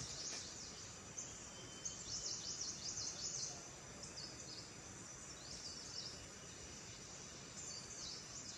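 Outdoor ambience: clusters of rapid, high-pitched chirps, each cluster lasting about a second, come back every two to three seconds over a faint steady hiss.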